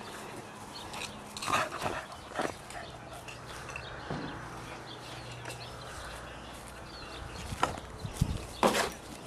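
An English Cocker Spaniel moving about, making scattered short clicks and knocks: a few about one and a half to two and a half seconds in, and a louder cluster near the end.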